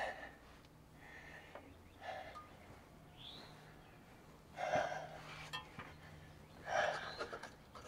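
A man breathing out hard and sighing a few times while straining at work, with a few faint clicks over a low steady hum.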